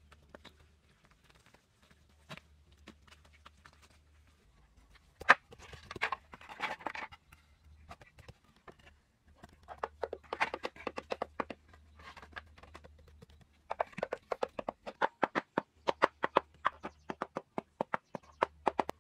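Light knocks and taps from hand work on bamboo pieces and packed earth, coming singly at first and then in quick runs of about four a second. There is one sharp knock about five seconds in, followed by a brief scraping rustle.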